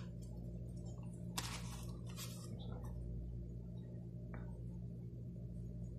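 Steady low electrical hum, with two short scratchy swishes of a paintbrush working acrylic paint a second or two in and a small click later on.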